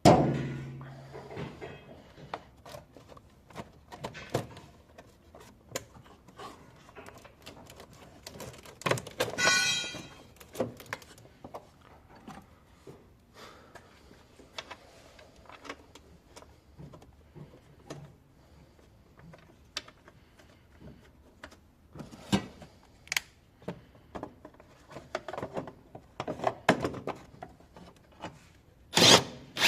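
Scattered knocks, clicks and clinks of hand tools and parts being handled during work on an engine, with a brief high ringing sound about nine and a half seconds in.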